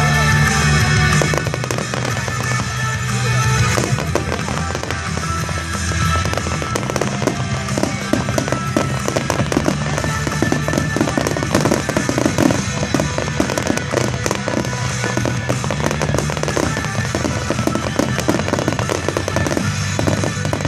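Fireworks display: continuous, dense crackling and banging as many aerial shells burst at once, with music playing underneath.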